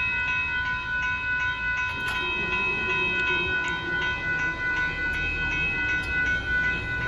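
Grade-crossing bell ringing steadily with regular strikes, over the low rumble of the train.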